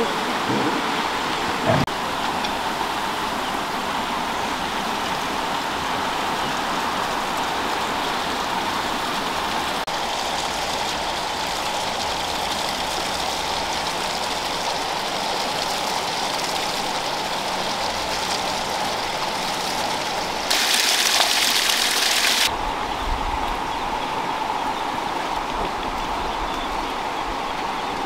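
A steady rushing hiss like running water. A louder, sharper hiss lasts about two seconds, some twenty seconds in.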